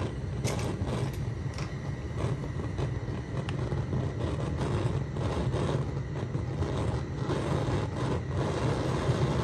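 Gas stove burner burning on a full ring of blue flame: a steady low rumble of burning gas with a faint hiss over it.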